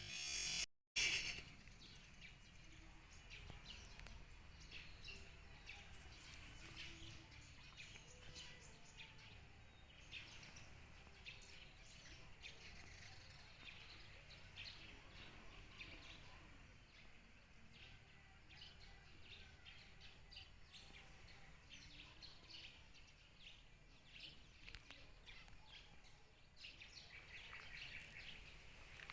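Faint outdoor background noise with scattered short bird chirps. A brief louder burst and a momentary dropout come about a second in.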